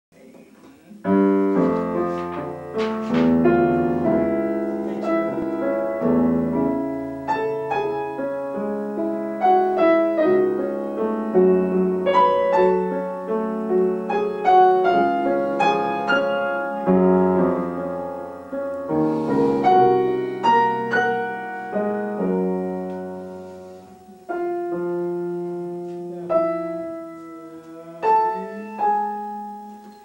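Two pianos playing, at times together: struck notes and chords starting about a second in, dense through most of the passage, then thinning to a few separate, ringing chords in the last several seconds.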